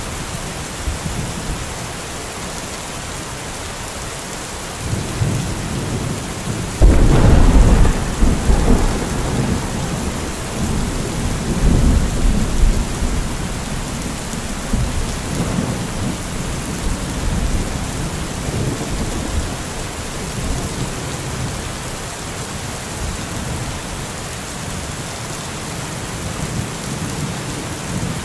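Heavy rain falling steadily during a thunderstorm. About seven seconds in comes a sudden loud crack of thunder, followed by low rolling rumbles that swell and fade several times.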